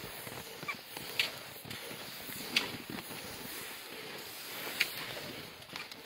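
Footsteps crunching in snow as someone walks along a snowy track, with a few sharper crunches about one, two and a half and nearly five seconds in.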